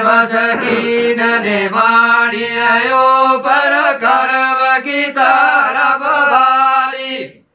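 Unaccompanied male singing of a Gojri bait, the hand-to-ear folk chant style: one long drawn-out held line, the pitch mostly level with shifting vowels, breaking off just before the end.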